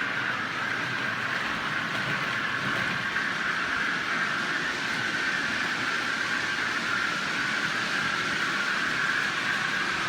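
OO gauge model trains running on the layout's track: a steady whirr of small electric motors and wheels on rail, with an even high hum that doesn't change.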